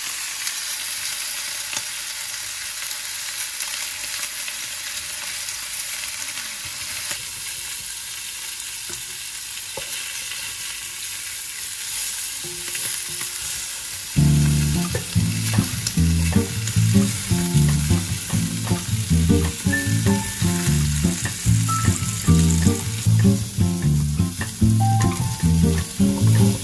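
Rabbit pieces sizzling steadily in hot oil as they brown in a casserole pot, turned now and then with a wooden spatula. Background music with a steady beat comes in about halfway through.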